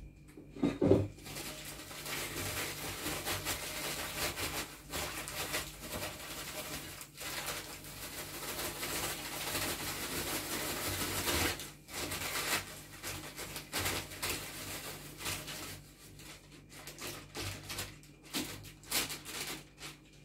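Dried chamomile being poured from a crinkling paper packet into a large glass jar. It makes a dense, continuous rustle for about ten seconds, then broken crinkles and shakes of the packet. A single thump about a second in is the loudest sound.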